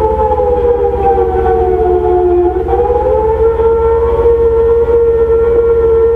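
Airfield attack-warning siren sounding a steady tone that sags lower and climbs back about two and a half seconds in, over a low steady hum: the alarm for an incoming rocket attack.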